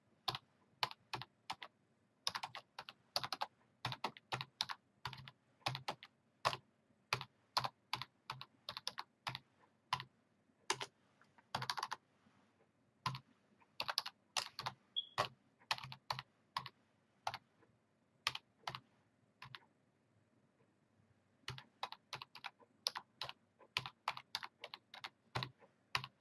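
Typing on a computer keyboard: quick, irregular keystrokes, with a pause of about two seconds some two-thirds of the way through.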